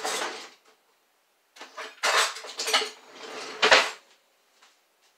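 Metal kitchen utensils clattering and knocking in irregular bursts as a can opener is grabbed and handled, with one sharp, loudest knock just before four seconds in.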